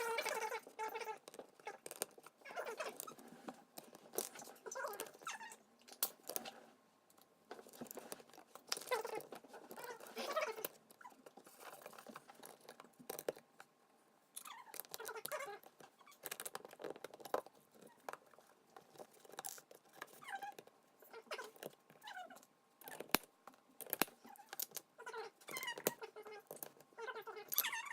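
Plastic Lego bricks rattling and clicking as pieces are handled, sorted and pressed together, in many short irregular clicks.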